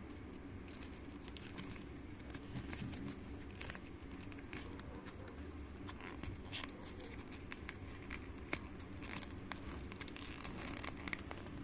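Paper being handled and folded: faint crinkling and soft creasing clicks, scattered irregularly over a low steady hum.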